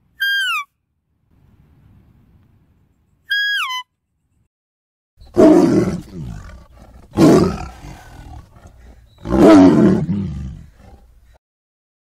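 Tiger roaring three times, each roar loud and fading away, about two seconds apart. Before that, two short high deer calls, each dropping in pitch, one at the start and one about three seconds in.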